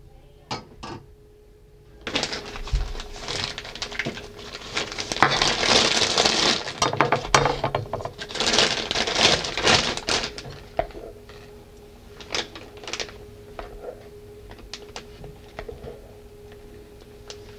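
Plastic piping bag crinkling and a spatula scraping whipped cream in a glass bowl as the bag is filled, dense and loud for several seconds, then giving way to scattered light clicks and taps.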